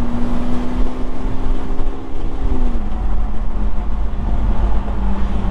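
Vehicle engine running under way with a steady low drone, its tone dropping in pitch about two and a half seconds in. The engine is pulling under load in a gear the driver forgot to shift down from.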